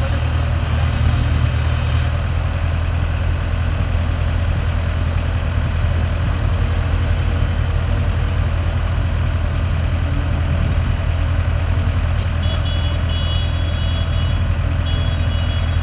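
Diesel engines of two excavators running steadily, an even, deep hum. A thin high steady tone comes in near the end.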